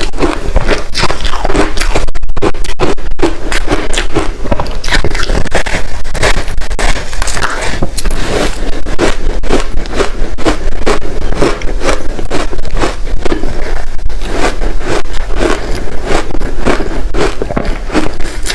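Close-miked crunching of ice chunks coated in matcha powder as they are bitten and chewed: a dense, unbroken run of sharp, irregular crunches and crackles.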